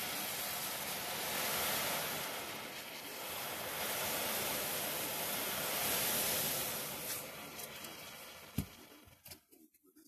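Caustic soda granules poured into just-boiled water in a metal tin, hissing and fizzing as they dissolve and the hot bath froths up. The hiss fades away over the last few seconds, with a single knock near the end.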